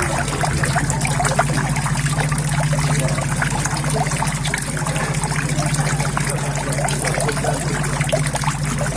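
Water trickling and splashing steadily into a koi pond, with many small splashes over a steady low hum.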